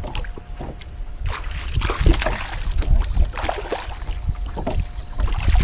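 Wind buffeting the microphone over water slapping and sloshing against a bass boat's hull, with a few louder splashes about two and three and a half seconds in.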